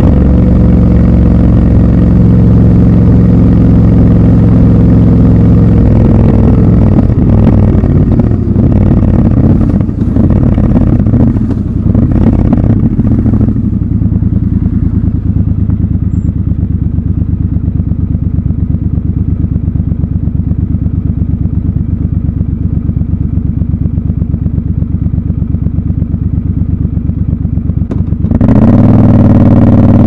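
Triumph Scrambler 1200 XC's parallel-twin engine running steadily at cruise, then easing off with a few knocks and clicks as the bike slows. It settles into an even, pulsing idle for about fourteen seconds, then revs up with rising pitch as it pulls away near the end.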